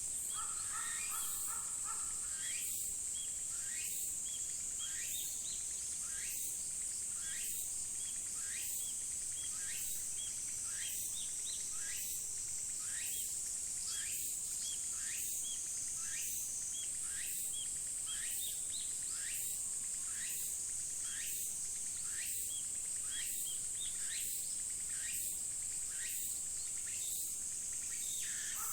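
Chorus of insects in a steady high drone that pulses about once a second, with short, rapidly repeated bird chirps over it.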